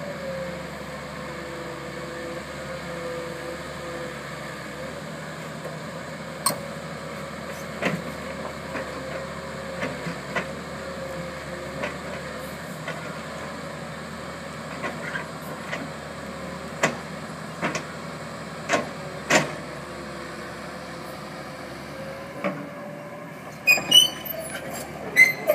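JCB tracked excavator's engine running steadily while its crushing-shear attachment handles slabs of concrete, with sharp knocks of concrete and steel every second or two, and a quick cluster of metallic clanks near the end.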